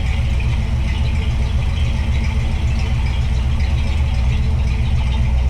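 1981 GMC Caballero's engine running steadily while the car is driven in second gear through its newly swapped-in four-speed manual gearbox.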